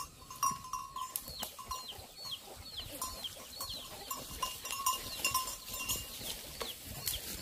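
A high chirping call repeated about twice a second over outdoor ambience, with rustling steps through grass.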